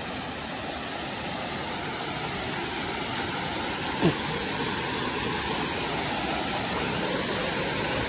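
Water rushing steadily over rocks in a hill stream, growing slightly louder, with one short falling tone about halfway through.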